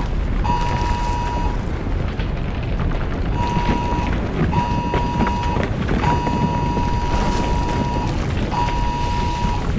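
Deep, continuous earthquake rumble sound effect, with a phone emergency alert tone sounding over it in on-off beeps of about a second each, one held about two seconds.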